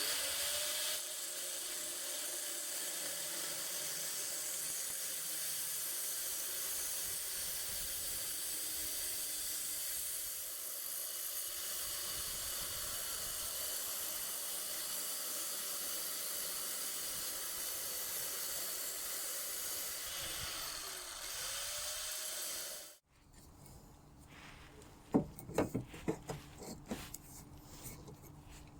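Angle grinder cutting sheet steel for sill repair plates: a steady hiss over the motor's tone, which rises as it spins up at the start. It stops abruptly a little past two-thirds of the way in, followed by a few sharp knocks.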